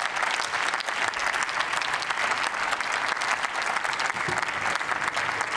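Applause: many people clapping their hands, holding steady and dense.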